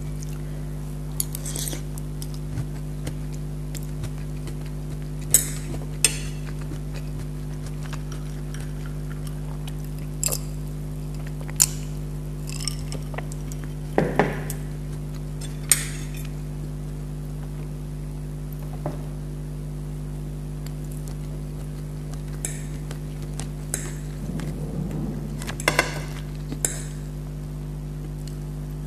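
Fork and spoon clinking and tapping on plates and a glass as someone eats, a dozen or so scattered sharp clinks over a steady low hum.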